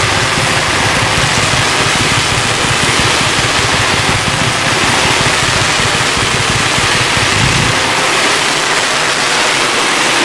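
Fireworks barrage so dense that the launches and bursts run together into one loud, continuous roar and hiss. The deep rumble underneath drops out about three quarters of the way through.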